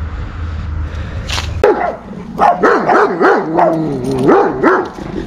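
A dog barking and yelping in a quick run of high, bending calls, starting about a second and a half in.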